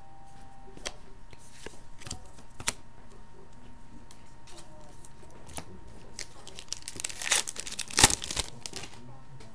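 A few light clicks of cards being handled, then crinkling and tearing as a foil trading-card pack wrapper is ripped open about seven seconds in.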